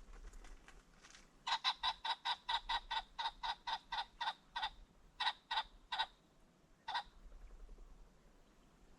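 Ring-necked pheasant calling: a fast run of about twenty notes lasting some three seconds, then four slower, spaced notes that trail off.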